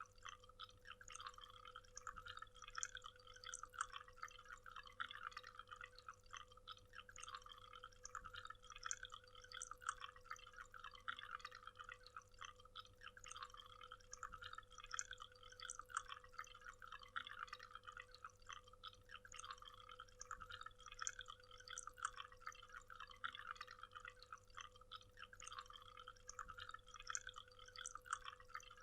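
Waterfall: water splashing and trickling in a dense, steady patter, faint overall, with a faint steady hum underneath.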